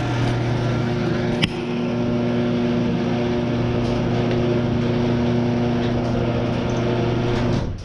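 Taotao Boulder 125 ATV's 125cc single-cylinder four-stroke engine running at a steady idle, with a sharp click about a second and a half in, then cutting out abruptly near the end as the engine dies.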